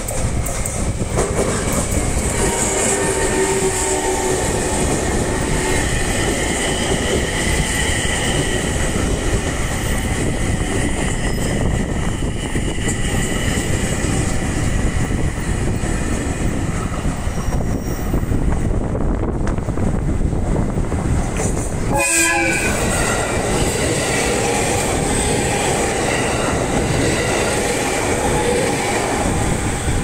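JR East E721-series and 701-series electric trains running through a level crossing, with wheels clattering over the rails and a steady rumble. A brief pitched horn sounds about 22 seconds in, as a courtesy horn from the train.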